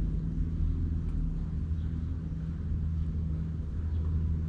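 Steady low machine hum and rumble, with a few faint ticks.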